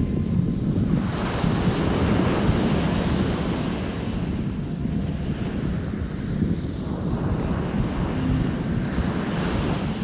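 Small sea waves breaking and washing up a coarse-sand beach, in two swelling surges of hiss, the first about a second in and the next about seven seconds in. Wind buffets the microphone with a steady low rumble underneath.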